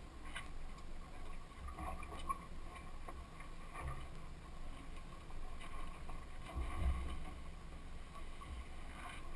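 Honda outboard motor running steadily at low speed, a low rumble with water noise around the hull, and a few light knocks on the deck, the loudest about two and seven seconds in.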